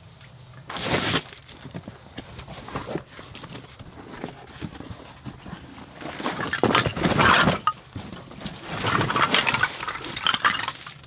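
Split firewood sticks tumbling out of a cardboard box onto a pile, wood clattering against wood in two long runs in the second half, after a single knock about a second in.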